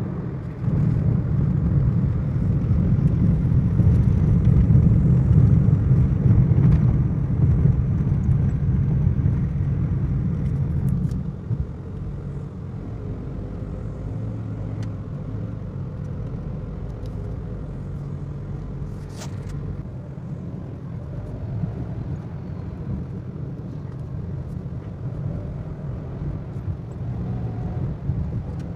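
Car driving on an open road, its engine and tyre rumble heard from inside the cabin. The rumble is louder for the first ten seconds or so, then drops to a quieter steady level about eleven seconds in.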